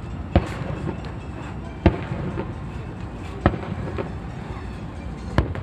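Fireworks shells bursting overhead: four loud bangs about one and a half seconds apart, with fainter pops between, over a steady background rumble.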